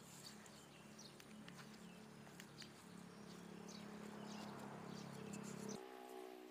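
Faint outdoor background: a low steady hum with scattered soft clicks. Near the end the hum gives way to a different, higher steady tone.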